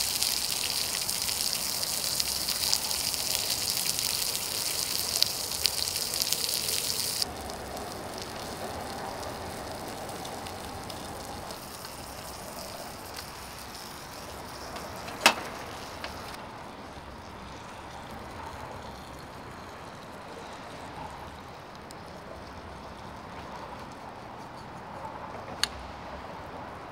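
Pork chop sizzling on a griddle plate over a portable butane stove, a loud hiss with fine crackles. About seven seconds in the sizzle drops sharply to a faint hiss that dies away, with a sharp clack about halfway through and a single click near the end.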